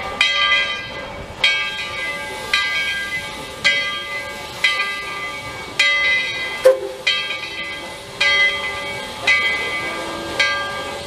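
Steam locomotive No. 12's bell ringing steadily, about one stroke a second, over a hiss of steam. A single sharp clank comes about two-thirds of the way through.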